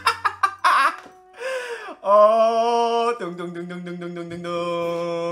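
A man's voice gives excited shouts, then a falling cry, then sings two long held notes, a higher one briefly and then a lower one held for about three seconds, like a triumphant "ta-da".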